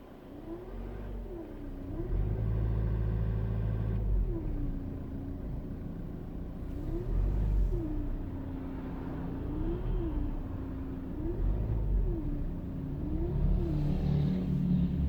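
Ford Focus 1.8 TDCi four-cylinder turbodiesel running with a strange whine that sweeps up and down every second or two. Under it is a low engine rumble that swells as the engine is revved. The owner traced the noise to a leaking coolant pump that had let the coolant run out.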